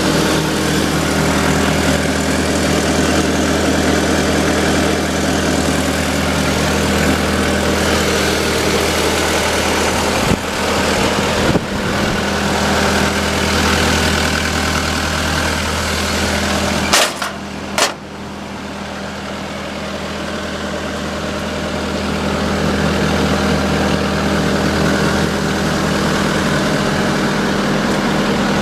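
Diesel engine of a John Deere 333E compact track loader running steadily at idle. About two thirds of the way through there are two sharp knocks, after which the engine sound drops and slowly builds back up.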